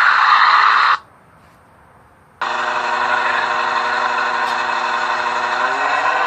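A loud steady noise stops abruptly about a second in; after a short lull, a motor vehicle engine sets in, running at a steady pitch that begins to waver near the end.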